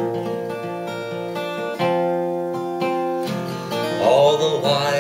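Acoustic guitar playing chords, changing chord twice. About four seconds in, a man's singing voice comes in over the guitar.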